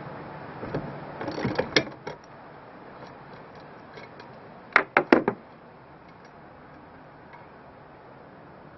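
Metal clicks and clinks of hand tools working the steering wheel nut and hub as the wheel is taken back off its shaft. There are a few scattered clicks in the first two seconds and a sharp cluster of four or five loud clicks about five seconds in.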